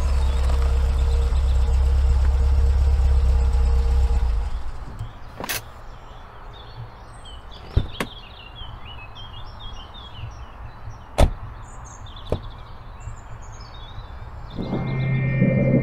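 Car engine running with a low rumble, switched off about four and a half seconds in. Then birds chirp while a car door gives several sharp clicks and knocks as it is opened and shut, the loudest about eleven seconds in. A steady low hum begins near the end.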